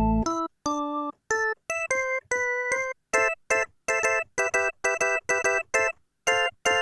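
Kurzweil K2000 synthesizer playing one of its factory programs dry, with no effects: short detached keyboard notes. It plays single notes for about three seconds, then staccato chords about two or three a second.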